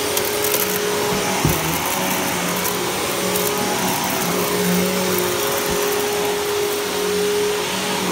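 Riccar bagged upright vacuum cleaner running steadily as it is pushed over carpet: a constant motor hum and rush of air, with a couple of brief knocks.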